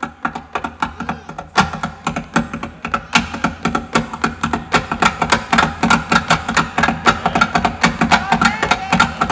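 Nylon-string cutaway acoustic guitar played fast and percussively: quick rhythmic strums and taps on the strings and body, with chords ringing between them. It starts softly and gets clearly louder about a second and a half in.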